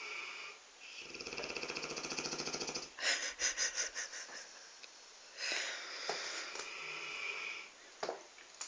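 Dogue de Bordeaux snoring in its sleep: a long rattling snore starting about a second in, a louder run of quick fluttering pulses around three seconds in, then another long snore in the second half.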